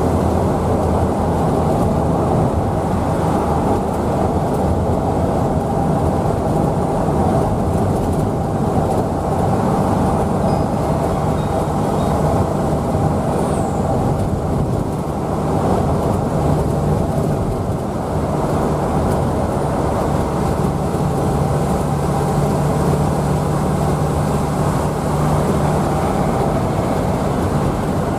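Steady drone of a road vehicle on the move: a low engine hum under road noise, holding at a steady level, with the engine's tone shifting slightly a little past halfway.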